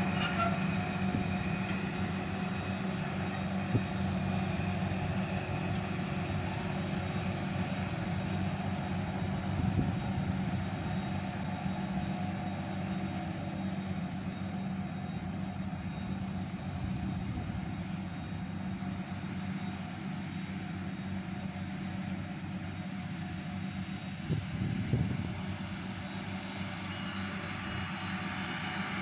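Forage harvester's diesel engine and chopper running steadily under load while chopping barley for silage, heard from inside the cab. A few brief knocks stand out over the drone.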